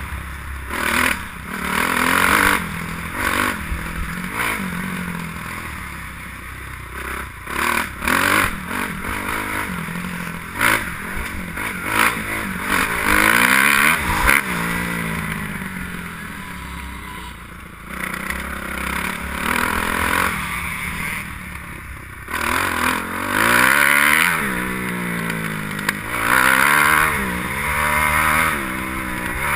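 Kawasaki KX250F motocross bike's four-stroke single-cylinder engine under hard riding. The revs climb again and again through the gears, then drop sharply each time the throttle is shut off.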